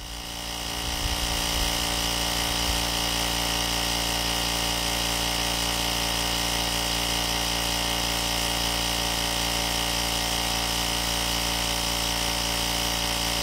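Tyre inflator's air compressor running steadily while pumping up a tyre, the pressure climbing from 36 to 39 psi. It builds up over about the first second, then holds an even pitch.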